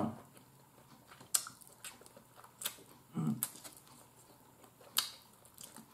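Quiet eating sounds from someone eating fried chicken wings: a few sharp mouth smacks and clicks, with a short low hum about three seconds in.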